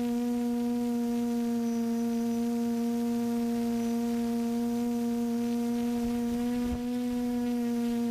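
A steady droning hum at one constant pitch, with overtones. There is a brief low thump about seven seconds in.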